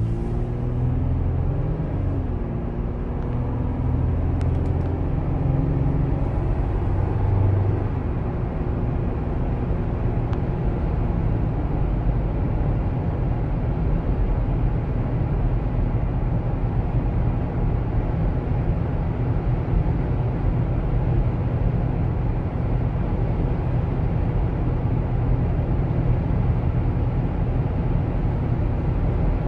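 Cabin sound of a 2018 Toyota 4Runner TRD Off-Road's 4.0-litre V6 pulling away. Its note rises and steps down through gearshifts in the first several seconds, then settles into a steady cruise with a low drone of engine, road and tyre noise.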